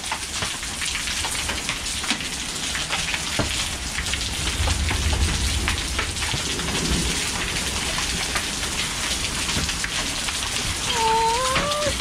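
Heavy rain mixed with hail, falling steadily onto a concrete driveway and nearby surfaces, with many sharp ticks of hits. A low rumble of thunder about five seconds in.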